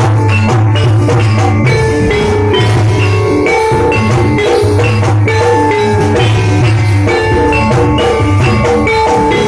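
Jathilan gamelan music: metal mallet percussion playing a repeating melody over drums, with a deep low note sounding in long stretches.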